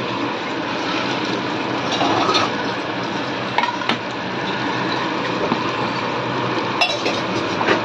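Metal spatula stirring pakoras into kadhi in a steel kadai, with a few sharp clinks of the spatula against the pan over a steady hiss.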